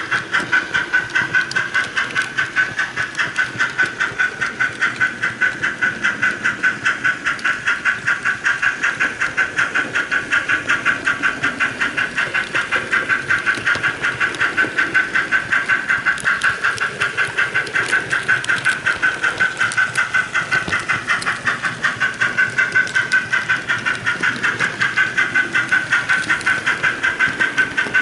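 HO-scale model Type 12 steam locomotive's sound decoder playing an even steam chuff through its small speaker, about three beats a second, with the locomotive running at a constant speed.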